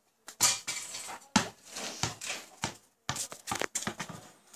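A basketball thudding on a concrete yard and hitting a small wall-mounted hoop: several sharp thuds with clattering between them.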